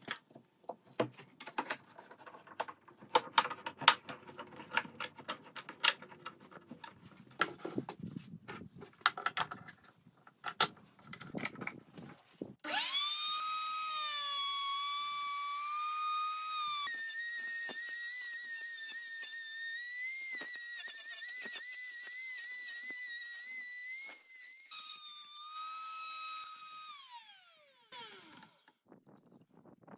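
Wooden knocks and clamp clatter for about the first twelve seconds, then an electric router starts up with a rising whine and runs steadily while cutting into the end of an oak board. Its pitch steps up a few seconds in and wavers, drops back, and the motor winds down with a falling whine near the end.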